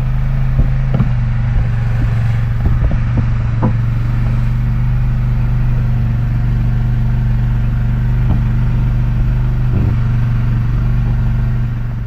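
A fishing boat's engine running steadily with a deep, even hum, with a few light knocks and clatters in the first few seconds. The engine sound drops away at the very end.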